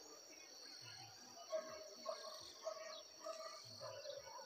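Faint rural ambience: a steady, high-pitched insect drone, with scattered bird chirps and a few short, sharp sounds.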